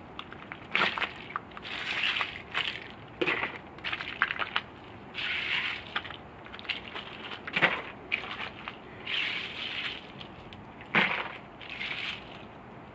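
Ice being handled and broken up in a plastic tray: repeated crunching and clattering of ice chunks, with sharp knocks, two of them louder, about halfway and near the end.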